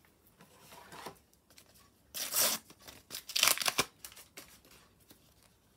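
A Panini sticker packet's wrapper being torn open by hand: two short rips, a little after two seconds and around three seconds in, with faint rustling of handled stickers before them.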